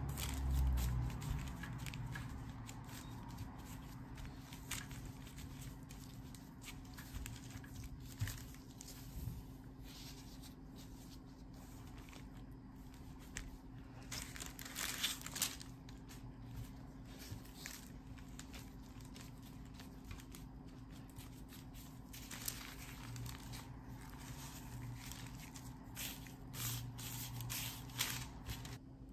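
Gloved hands pressing, folding and stacking crumbly pumpkin scone dough on parchment paper: irregular rustling and crinkling of the paper and the plastic gloves, with soft pats on the dough, over a faint steady hum.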